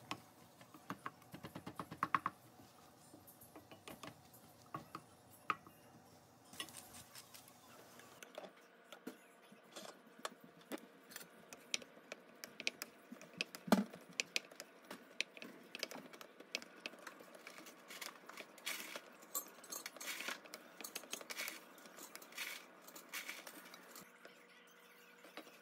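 Wooden spatula scraping and tapping against a stainless steel pan while stirring fried rice with mixed vegetables, in many quick, irregular clicks and scrapes.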